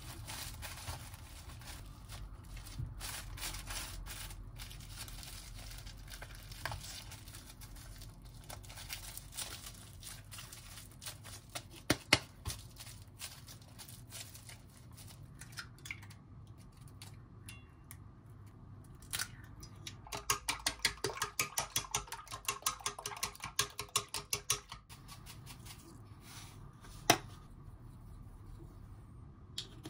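Plastic cling film crinkling and rustling as cooked rice is squeezed into a rice ball inside it. Later comes a quick run of light clicks, several a second for about five seconds, from chopsticks beating egg in a small enamel pot.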